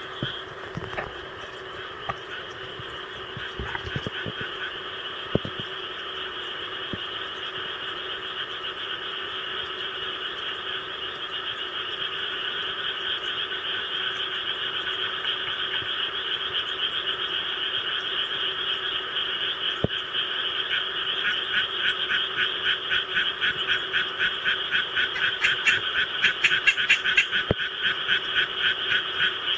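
Japanese tree frogs calling in a dense, steady chorus of rapid croaks that grows louder throughout. In the second half a nearby tree frog's fast pulsed calls stand out over the chorus, loudest near the end.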